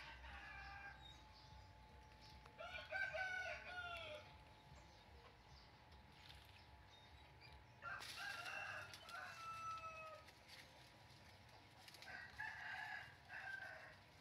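Rooster crowing three times, each crow about one and a half to two seconds long and a few seconds apart.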